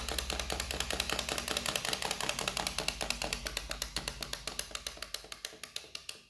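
Yellow toy chick's walking mechanism clicking rapidly and evenly, about ten clicks a second, growing gradually fainter.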